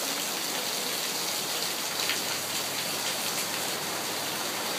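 Steady heavy rain falling and pattering on surfaces during a thunderstorm.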